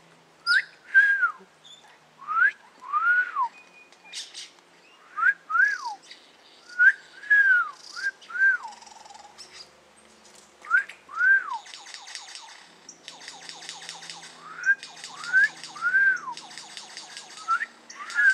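Superb lyrebird mimicking wolf whistles: repeated two-part whistles, each a quick upward slide then a longer rise and fall. In the second half, bursts of rapid rattling clicks sound like toy-gun fire.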